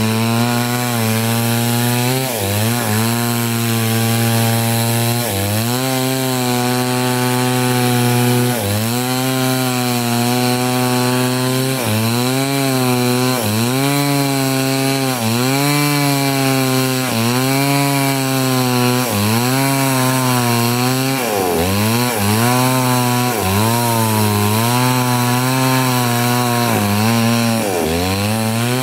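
Two-stroke chainsaw running at full throttle, ripping lengthwise through a large log, its pitch dipping under load and recovering every two to three seconds.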